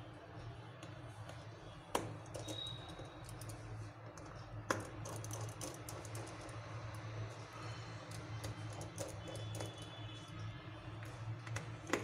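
Small clicks and taps of a precision screwdriver working the tiny screws of an opened Honor 8X phone's midframe. There is a sharp click about two seconds in and another just before five seconds, then many lighter clicks, over a steady low hum.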